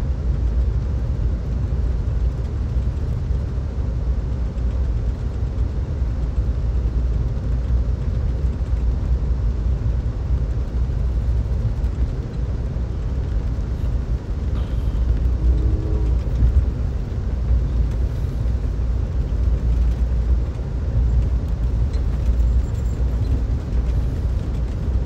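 Steady low rumble of an Amtrak California Zephyr passenger train running at speed, heard from inside the car.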